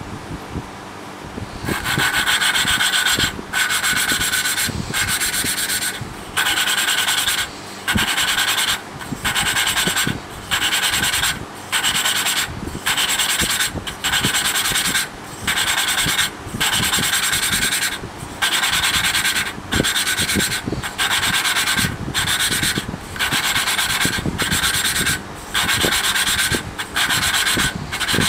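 A poppet valve being hand-lapped against its seat in a small air-cooled engine's cylinder head: a lapping stick spun back and forth grinds the abrasive paste between valve face and seat, making a gritty rasping. The rasping comes in repeated strokes of about a second, with short pauses between them, and starts about two seconds in. The grinding wears both surfaces to match so the valve seals.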